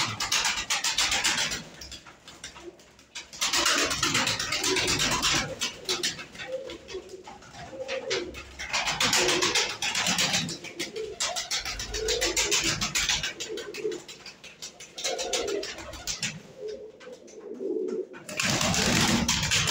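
Domestic pigeons cooing in a small loft, with several loud rushes of wing-flapping as birds flutter up and land, the loudest near the start and again near the end.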